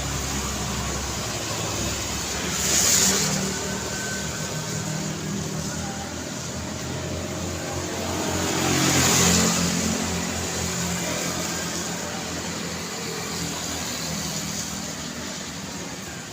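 Road traffic running steadily, with a low engine hum under a constant haze of noise. Two vehicles pass close: a short one about three seconds in and a longer one that rises and falls around nine seconds in.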